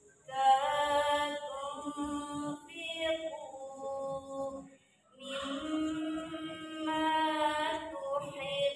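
A female reciter chanting the Qur'an from memory in a slow, melodic recitation into a microphone. There are two long, drawn-out phrases with a breath pause about five seconds in.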